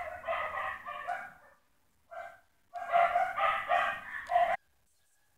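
Animal calls in quick repeated notes: one run at the start, a short call a little after two seconds, then a longer run that stops abruptly about a second before the end.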